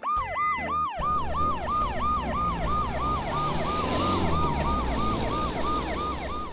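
Electronic siren of a toy repair van, repeating a quick rise-and-fall in pitch about three times a second, over a low steady rumble.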